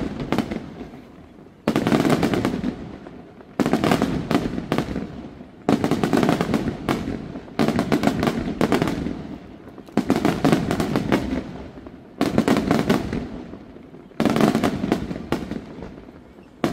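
Aerial firework shells bursting about every two seconds, about seven times. Each is a sudden bang followed by a spray of crackling and a fading rumble.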